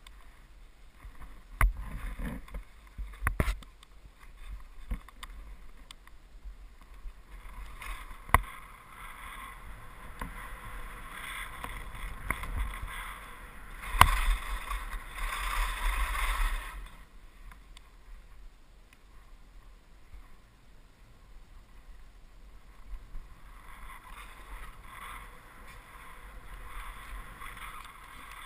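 Skis sliding through powder snow: a hissing swish that swells and fades with each run of turns, with a few sharp knocks along the way.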